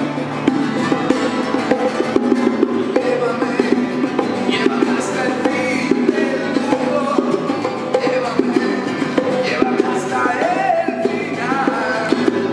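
Live acoustic band music: two acoustic guitars strummed and a pair of bongos played by hand in a steady rhythm, with singing.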